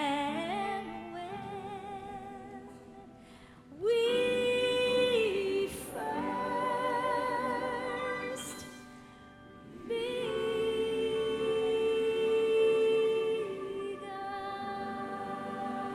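Gospel hymn singing in long held notes with vibrato, phrase after phrase, with no clear words.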